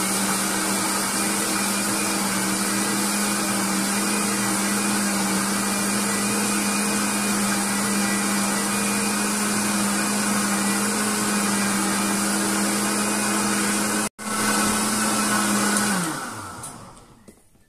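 Electric countertop blender running steadily, beating corn cake batter of blended corn, milk, eggs, oil and sugar. The motor holds one steady pitch. It breaks off for an instant about fourteen seconds in, then is switched off near the end and winds down, its pitch falling.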